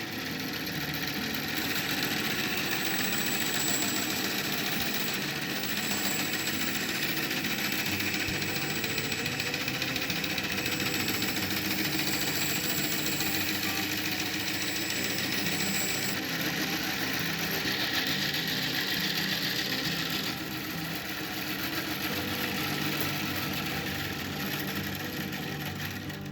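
Old homemade wooden bandsaw running, its belt-driven electric motor, belt and blade making a loud, steady mechanical racket.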